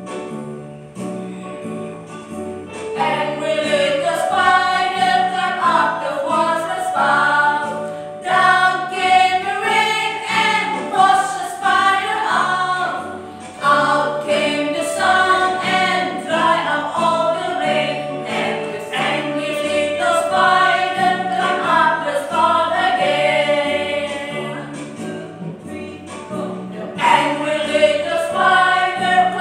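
Children's song with women's voices singing together over keyboard accompaniment and a steady bass beat; the singing comes in about three seconds in.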